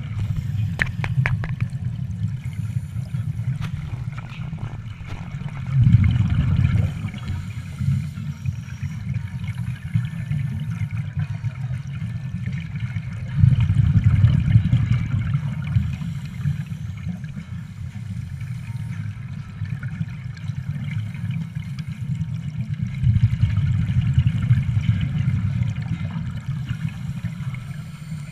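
Scuba divers' exhaled regulator bubbles heard underwater as a low bubbling rumble, swelling three times a few seconds apart.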